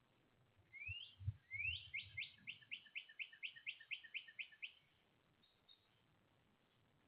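A songbird singing: one rising note, then a quick run of about a dozen rising notes at roughly four a second, lasting about three seconds. A few low thumps come near the start of the song.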